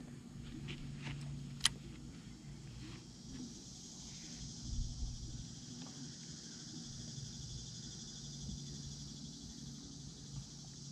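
Baitcasting reel being cranked steadily while a deep-diving crankbait is retrieved: a soft, even whir. A single sharp click comes about a second and a half in, and a low hum sits underneath.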